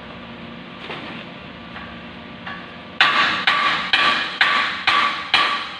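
Hammer striking steel beams in a steady series of blows, about two a second, each leaving a short metallic ring. The blows begin about three seconds in, after a few light knocks.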